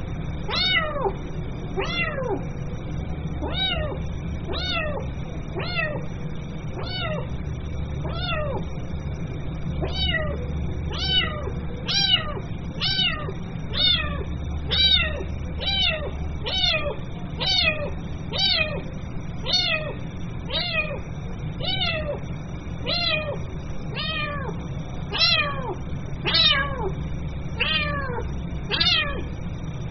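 Kitten meowing over and over, about one call a second, each call sliding down in pitch: a kitten calling for its mother. A steady low hum runs underneath.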